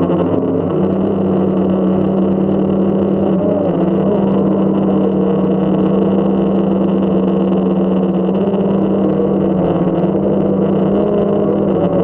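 Multirotor drone's motors and propellers humming steadily and loud, close to the microphone, the pitch wavering slightly now and then as the drone manoeuvres.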